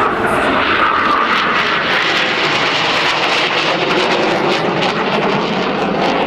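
Saab 105OE jet trainer's twin General Electric J85 turbojets, a loud, steady jet noise as the aircraft banks through its aerobatic display and draws away.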